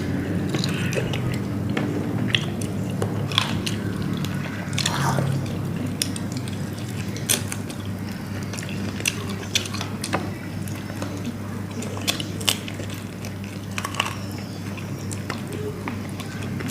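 Close-up eating sounds of biting and chewing grilled chicken wings: scattered short wet clicks and smacks over a steady low hum.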